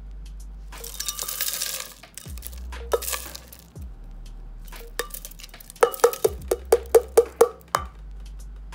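Ice cubes clattering and clinking as they are scooped and tipped into a glass blender jar. A rattling pour comes about a second in, and near the end there is a quick run of about nine sharp clinks, roughly four a second, as cubes drop against the glass.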